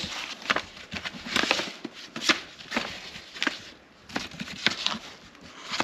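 Hands rummaging through small items and papers in a cardboard box: irregular rustling of paper with light clicks and knocks of small objects.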